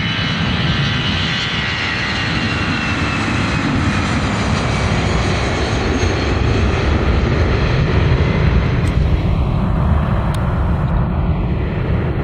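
Airbus A320-214's twin CFM56 turbofans at takeoff thrust as the jet rolls, lifts off and climbs away. A high fan whine falls in pitch over the first few seconds as it passes, under a deep rumble that grows a little louder toward the end.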